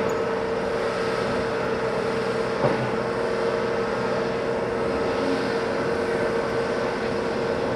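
Diesel engines of a CAT excavator and crawler dozers running at a construction site while they work the overturned end-dump trailer, with a steady high whine throughout. A single clank comes about two and a half seconds in.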